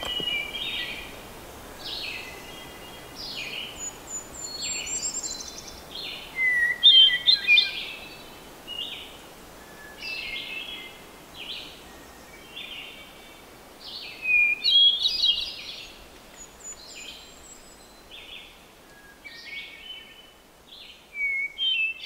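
Hermit thrush singing: a long run of short high phrases, one after another and at varying pitch, over a faint steady background hiss.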